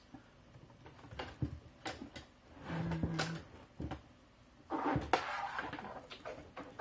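Scattered light clicks and taps, with a rustle about five seconds in, as a laptop's replacement LCD panel is handled against its plastic display lid.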